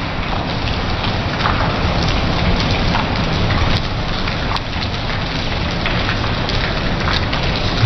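Heavy rain falling steadily, with scattered individual drops and drips tapping on hard surfaces.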